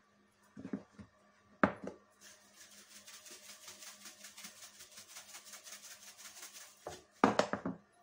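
Salt shaken from a plastic container over a pot: a fine, steady rattling hiss pulsing quickly and evenly with each shake. A couple of sharp knocks come before it, and a louder clatter near the end.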